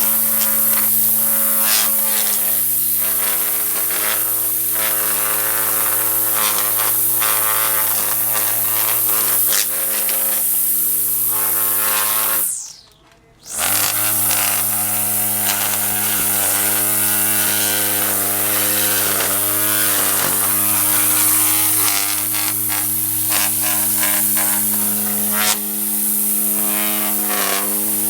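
Electric string trimmer (weed eater) running at a steady whine, its line ticking as it cuts grass. About halfway through the motor winds down, stops for a second, and spins back up.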